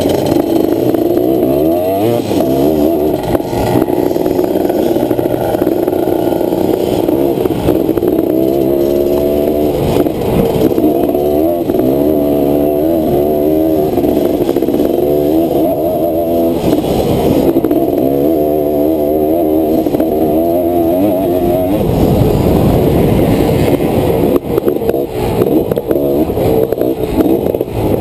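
Honda ATC250R three-wheeler's two-stroke single-cylinder engine heard from onboard while riding a dirt track. The engine revs up and drops back over and over as the rider accelerates, shifts and backs off for corners.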